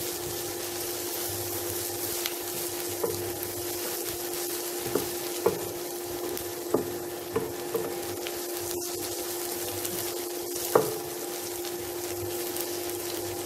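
Sliced onions sizzling in coconut oil in a non-stick kadai, stirred with a wooden spatula that knocks and scrapes against the pan several times. The loudest knock comes near the end, all over a steady hum. The onions are past translucent and being fried toward brown.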